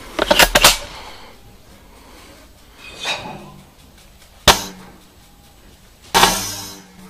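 Airsoft sniper rifle being worked and fired: a quick cluster of clicks near the start, a softer burst around three seconds in, a single sharp crack about four and a half seconds in, and a louder burst with a short fading tail about six seconds in.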